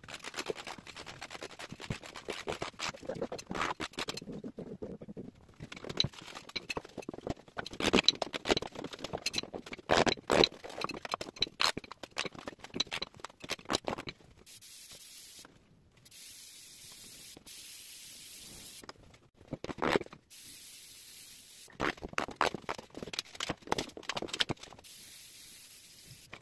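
Hammer striking a chisel behind old wooden skirting boards, with the cracking and scraping of the boards being prised off the wall, in irregular bursts of knocks. Between the bursts come several stretches of steady hiss.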